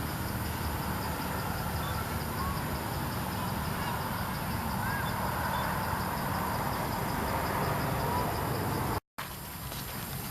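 Steady outdoor background noise with a fast, regular high-pitched pulsing and a few faint short chirps. The sound cuts out completely for a moment about nine seconds in.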